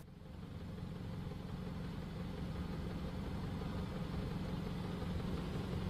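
A steady low engine hum, like a vehicle idling, slowly growing a little louder.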